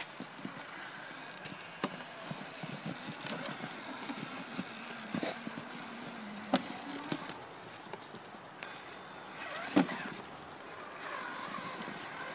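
Traxxas Summit electric RC truck crawling over a fallen log in dry leaves: its motor and gears whir on and off, the tyres rustle through the leaves, and a few sharp knocks sound as the truck strikes the wood.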